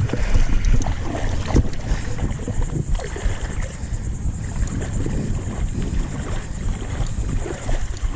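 Wind buffeting the microphone, a low fluctuating rumble with a few faint knocks.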